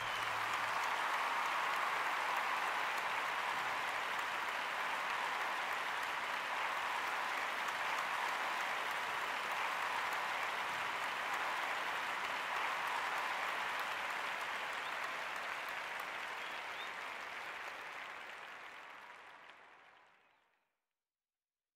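Audience applause, a steady dense clapping that fades out near the end.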